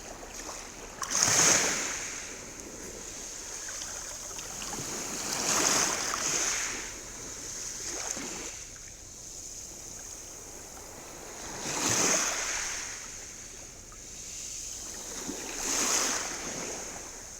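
Sea waves breaking and washing ashore, the surf swelling and ebbing about every four seconds: four large waves and one smaller one between them.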